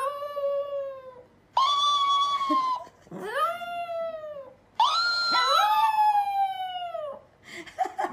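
Chihuahua howling: about four long drawn-out howls in a row, each rising quickly then sliding slowly down in pitch, with short pauses between them.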